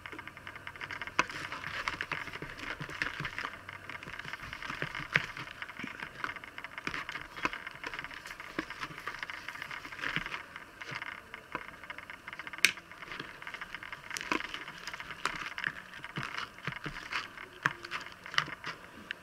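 Sticky glitter slime mixture being stirred and worked by hand in a plastic tub as activator is mixed in: a continuous wet crackling with many small sharp clicks and pops. The mixture is very sticky and not setting into slime.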